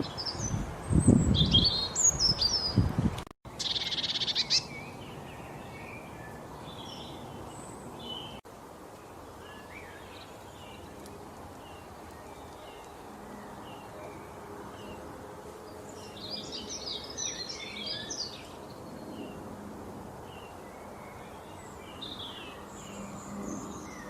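Small songbirds chirping and calling in short, scattered notes over a steady faint background hiss, with a denser flurry of chirps about two thirds of the way through. A louder low noise fills the first three seconds and cuts off suddenly.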